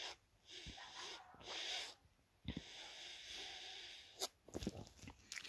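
Iced coffee sucked up through a paper straw: faint airy sucking in two long draws, with a short click near the end.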